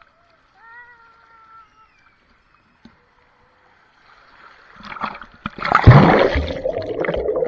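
Water rushing down a waterslide chute, growing louder as the rider reaches the exit, then a loud splash about six seconds in as the rider plunges into the pool, followed by churning water with the camera underwater.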